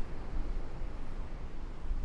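Strong wind buffeting the microphone in uneven, low gusts, over the wash of ocean surf.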